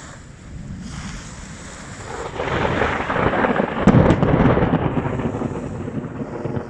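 Thunder rumbling from a nearby thunderstorm, swelling about two seconds in, loudest around four seconds, then slowly rolling away.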